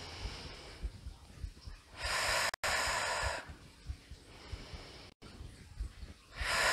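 A woman breathing heavily into a close microphone, paced to a kneeling Pilates quad exercise: one long breath about two seconds in and another starting near the end, with fainter breathing between and soft low thumps.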